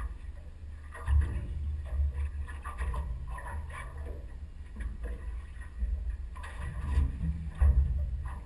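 Uneven low rumble of wind and water noise on a small boat at sea, with several sharp knocks against the hull or deck, the loudest about a second in and near the end.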